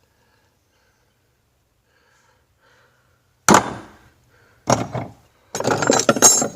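Old hand tools knocking and clattering as they are handled and set down: one sharp knock, a second a second later, then a short run of clatter near the end.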